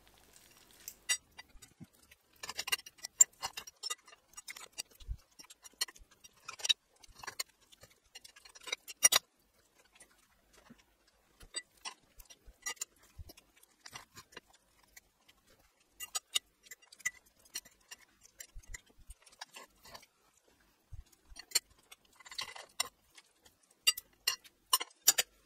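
Steel knife and fork cutting through pan-fried chicken and scraping and clicking on a ceramic plate, in several spells of sharp clicks and scrapes with short pauses between.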